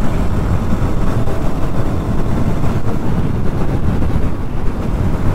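Steady wind rush on the microphone while a Bajaj Pulsar NS200 motorcycle cruises on the highway, its single-cylinder engine running beneath the wind noise.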